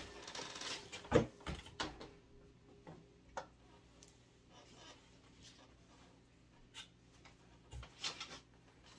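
Belts and other items being handled and rummaged through in a cardboard box: scattered clicks and knocks, the loudest about a second in, with a few smaller ones later.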